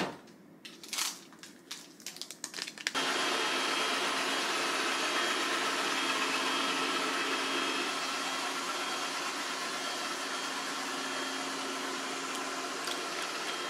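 Robot vacuum cleaner running with a steady motor hum and whine, starting abruptly about three seconds in after a few clicks and rustles.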